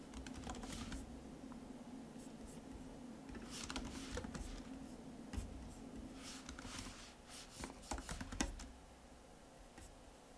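Computer keyboard typing in a few short bursts with pauses between them, faint.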